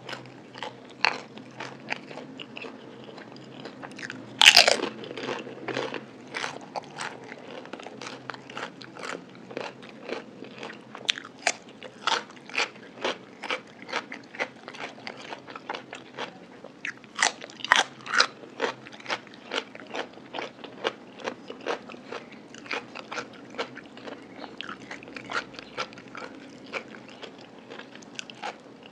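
Close-miked chewing of crispy fried food: a steady run of crunches, about two a second, with one louder crunch about four and a half seconds in.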